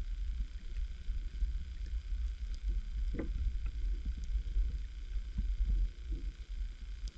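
Muffled low rumble of water moving around a submerged camera's housing, with scattered soft knocks and one stronger dull thump about three seconds in.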